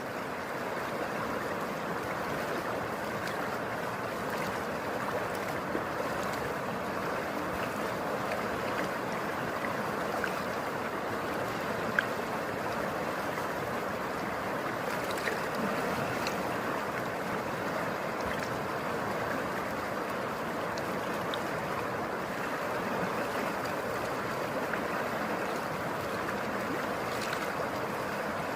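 Çoruh River water rushing in a steady, even noise, with one brief sharp click about halfway through.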